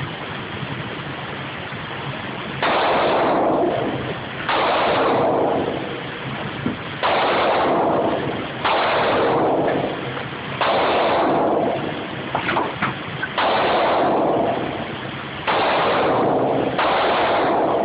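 Glock pistol fired one shot at a time: eight shots spaced about two seconds apart, unevenly. Each is a loud crack that overloads the recording and rings out in the enclosed indoor range.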